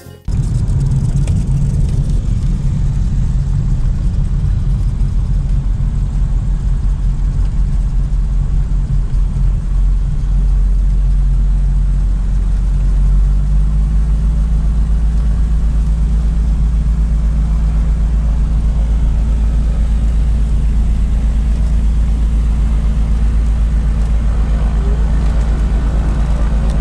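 Piper PA-31's twin piston engines running steadily at low power on the ground, heard from inside the cabin. The engine note shifts slightly a little under halfway through.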